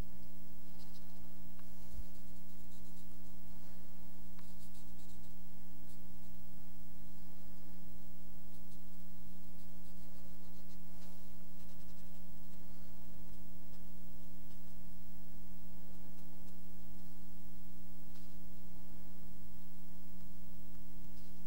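Faint scratching of a cotton swab and a black pastel stick rubbing over paper, over a steady electrical hum.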